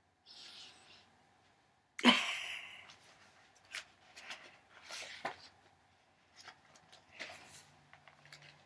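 A woman laughing in breathy, snorting bursts, set off by one loud outburst about two seconds in.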